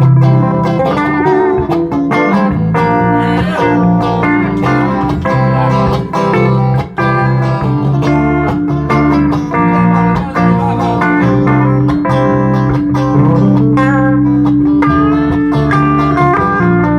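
Guitar-led instrumental music: plucked guitar notes, some sliding in pitch, over a steady bass line.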